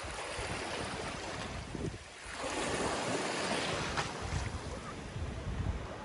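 Small ocean waves breaking and washing through shallow surf. One wash surges up loudest from about two seconds in and fades away after a couple of seconds.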